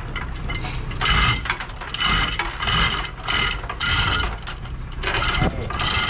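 Hand-operated chain hoist being pulled to lift a boat's inboard engine: the chain rattles and the pawl clicks in repeated bursts, about one a second.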